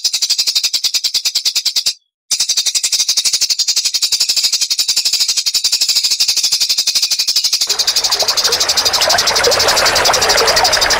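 Recorded songbird singing a fast, machine-like trill of high notes, more than ten a second, the rapid 'tembakan' burst used in Indonesian masteran tutor tracks. It breaks off briefly about two seconds in and resumes, and from about eight seconds a rougher, lower chattering joins it.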